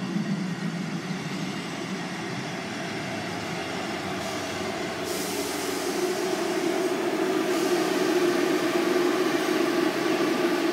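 Class 158 diesel multiple unit approaching along the platform: a steady diesel drone with wheel noise, growing louder as it draws alongside.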